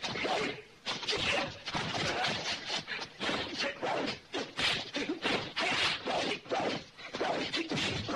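Martial-arts film fight sound: a rapid, unbroken run of punch and kick hit effects, several a second.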